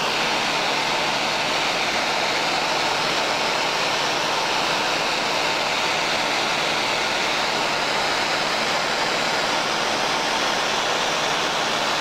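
Small propeller plane in flight, heard from inside the cabin: a steady, unbroken drone of engine and rushing air with a faint low hum.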